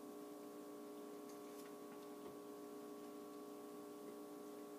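Faint steady hum made of several held tones, with a few soft ticks about one and two seconds in.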